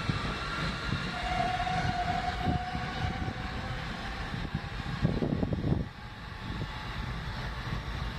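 R160B subway train pulling away from the station, its wheels rumbling on the rails as it moves off. A brief steady high tone comes about a second in, and a louder burst of rumble around five seconds in, after which the sound drops as the train recedes.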